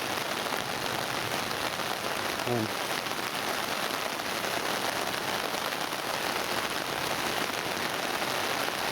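Monsoon rain falling steadily, an even hiss of rain.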